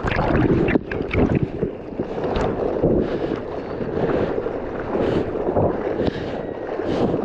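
Sea water rushing and splashing hard against a boat's hull right at the microphone, in a dense, uneven wash of spray and slaps, with wind buffeting the microphone.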